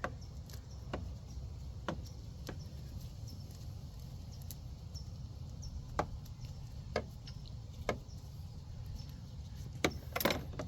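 Scattered light clicks and taps of small parts being handled while a headlight bulb and its retaining ring are fitted, over a steady low hum.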